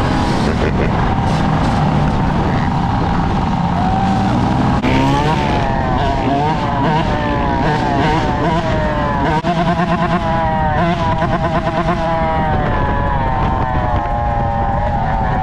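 Yamaha dirt bike engine running under the rider, its revs rising and falling over and over, with wind rushing over the microphone and other dirt bikes and quads running close by.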